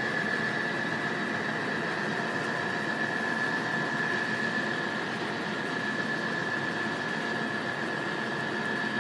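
Level crossing alarm sounding one steady high-pitched tone while the barriers are down, over a steady low rumble.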